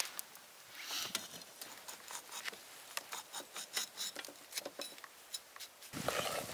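Knife cutting into a whole yellowtail behind the gill plate: a run of crisp ticks and crackles, several a second, as the blade works through skin and scales. Near the end a louder rustling sets in as the fish is handled on the paper towel.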